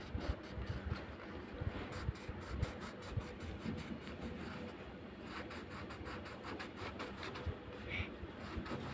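Wax crayon rubbed quickly back and forth on a paper worksheet: a faint, rapid scratching of many short strokes.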